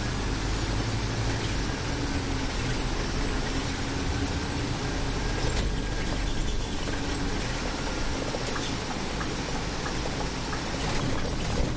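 Scania Citywide city bus on the move, heard from the driver's seat: a steady low engine hum with a slightly wavering drone over road and tyre noise.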